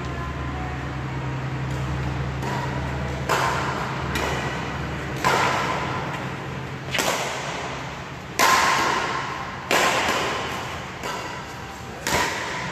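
Badminton rally: a racket strikes the shuttlecock about every one and a half to two seconds, six sharp hits in all, each echoing in a large hall.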